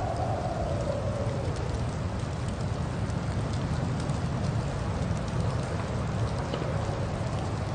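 Blizzard wind howling over a steady low rumble and hiss, with faint scattered ticks. The howl fades out about a second and a half in.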